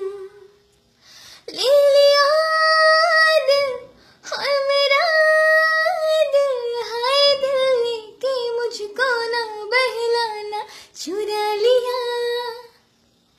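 A woman singing unaccompanied in four long phrases with sustained, gliding notes, starting after a short pause about a second in.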